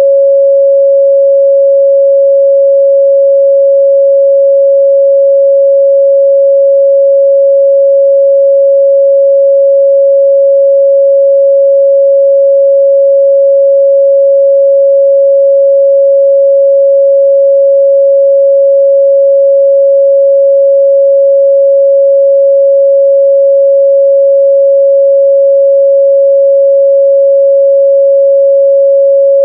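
Steady 553 Hz sine-wave test tone, a single pure pitch held at a constant loud level.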